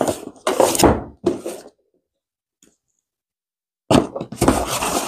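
A cardboard product box being opened by hand: rustling, scraping and knocking of cardboard in two bursts, one in the first second and a half and another starting about four seconds in.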